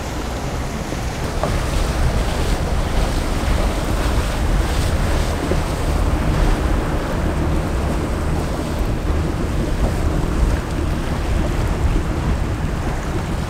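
Wind buffeting the microphone over choppy water slapping at the boat, with a passing cabin cruiser's engine running from about halfway through.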